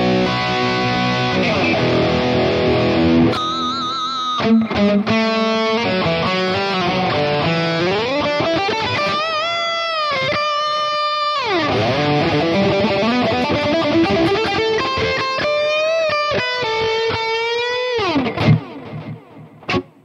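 Electric guitar played through a digital amp modeler with a delay effect: sustained lead lines with slides, bends and wide vibrato. The playing stops near the end.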